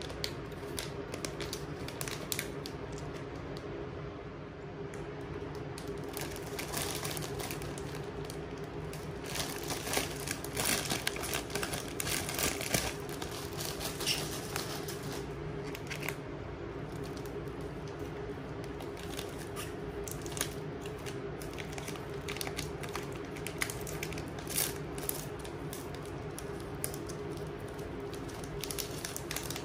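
Plastic snack packaging crinkling and rustling as it is handled, with irregular crackly ticks, busiest about a third of the way in: a foil gummy pouch, then a bag of individually wrapped corn puff sticks, one of which is opened.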